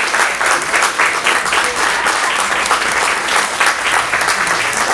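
Audience applauding, a dense, steady patter of many people clapping.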